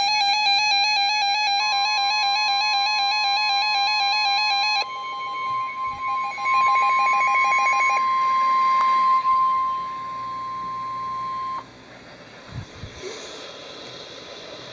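Radio Shack 12-262 weather alert radio sounding an Emergency Alert System alarm. The radio's own fast warbling alert tone fades out by about eight seconds in. Laid over it is the steady NOAA Weather Radio 1050 Hz warning tone, which starts about a second and a half in and cuts off abruptly about four seconds before the end. This is the signal that a warning, here a severe thunderstorm warning, is about to be read. Near the end there are a few soft thumps over low hiss.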